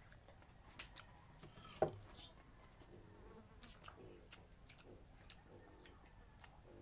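Quiet eating sounds: scattered soft clicks and smacks of chewing and of fingers picking at food on plates, with one sharper click just before two seconds in.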